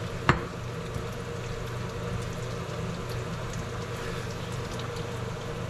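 Food sizzling in oil in a frying pan, a steady hiss, with one sharp tap about a third of a second in.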